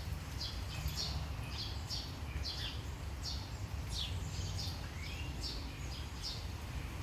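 A small bird chirping over and over, short high notes that drop in pitch, about two a second, over a steady low rumble.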